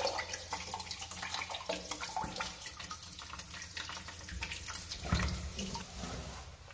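Water trickling and splashing out of the open bottom of a chrome sink P-trap into a bucket of water below, as a clog of hair is pulled from the trap.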